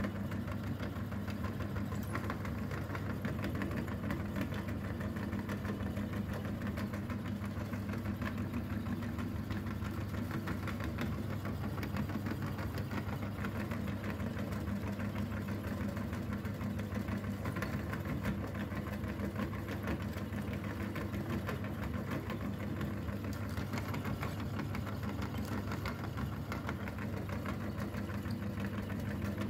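Motor-driven meat grinder running steadily while its auger crushes chalk into powder: a constant low motor hum under a dense, even crackle of grinding.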